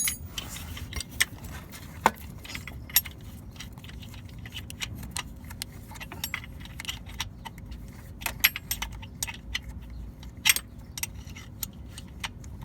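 Irregular light metallic clicks and clinks of metal tools and parts being handled during work on a pickup's starter wiring, over a low steady rumble.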